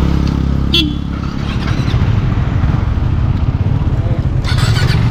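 Motorcycle engine running with a steady low rumble. There is a brief click about a second in, and a short burst of hiss near the end.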